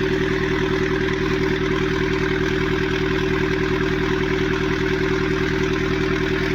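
Mahindra Scorpio S9's diesel engine idling steadily with a fast, even beat. It is running noisily, with a lot of engine noise that the mechanic cannot account for.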